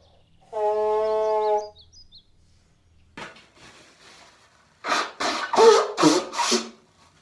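A person blowing their nose into a tissue. A steady, trumpet-like honk about a second long comes near the start, then a run of several loud, rougher blows about five seconds in.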